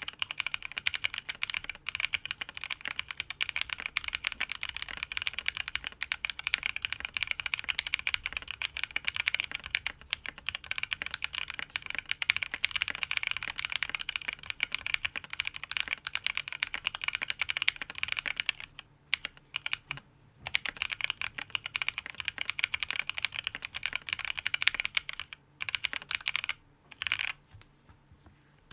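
Fast continuous typing on a Tofu68 tray-mount mechanical keyboard with a polycarbonate plate, TTC Speed Silver linear switches and lubed Cherry stabilizers. It is a dense rattle of keystrokes with a few short pauses in the second half.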